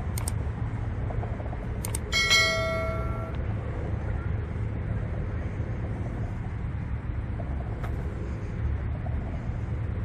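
Steady low rumble of distant city traffic. About two seconds in, a bell rings once with a sharp ding that fades over about a second.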